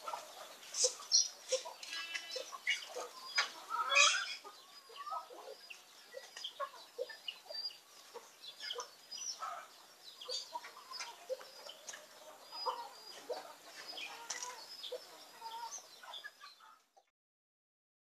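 Birds calling in a busy mix of many short chirps and clucks. The calls stop abruptly near the end.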